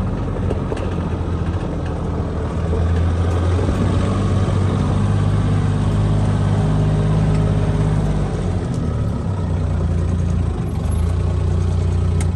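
A motor vehicle engine running while driving: a steady low engine hum with ride and road noise, its pitch shifting a little as the speed changes.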